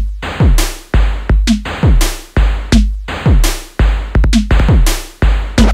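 Electronic backing music with a heavy drum-machine beat: deep bass kicks that drop in pitch, alternating with sharp hits.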